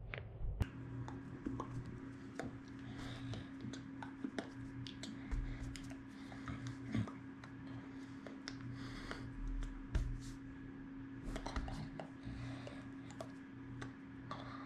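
Scattered light clicks and taps at irregular intervals over a steady low hum, in a small room.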